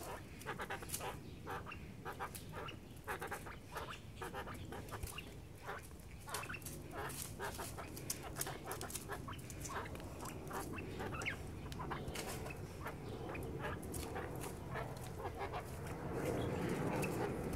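An Emperor quail giving rapid short calls as it scuffles with a hand, with dry leaf litter crackling underneath. The rustling grows louder near the end as the bird is grabbed.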